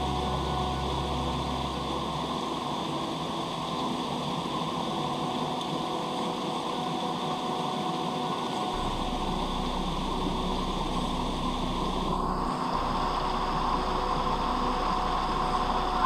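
Steady rushing of a waterfall, with faint steady whining tones over it.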